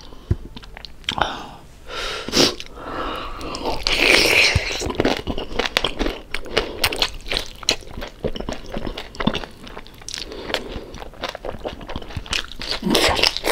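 Close-up crunching and chewing of crispy deep-fried pork belly (lechon kawali): many rapid crackling crunches with a louder crunch about four seconds in.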